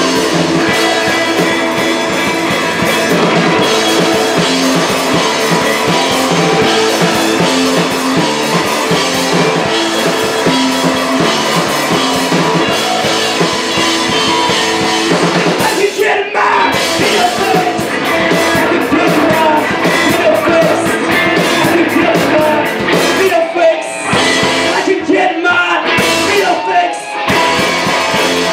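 Live post-punk band playing loud: distorted electric guitars, bass guitar and drum kit. After about sixteen seconds the dense playing breaks up, with brief stops near the end.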